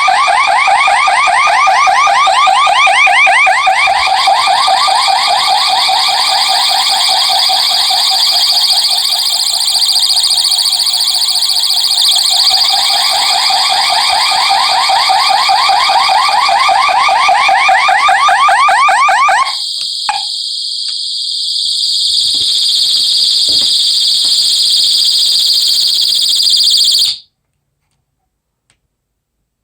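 Two security sirens, a Revere mini horn and an Ameritech two-tone siren, sounding together and loud: a fast-warbling tone over a steady high-pitched tone. About two-thirds of the way through the warbling one stops, and the high tone runs on alone until it cuts off suddenly near the end.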